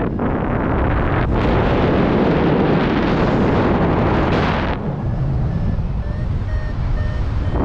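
Wind buffeting the microphone during a paraglider flight: a loud, steady rushing with a heavy low rumble. About five seconds in the hiss eases and a faint series of short, evenly spaced beeps, about two a second, can be heard under the wind.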